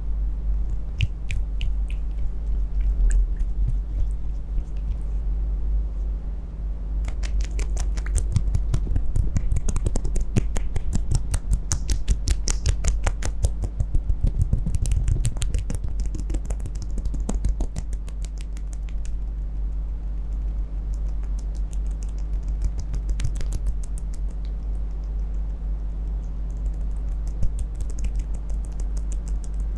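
Hands massaging a wet face: a fast run of crisp skin clicks and pats from about 7 to 19 seconds in, and a few more near the end. A steady low hum runs underneath.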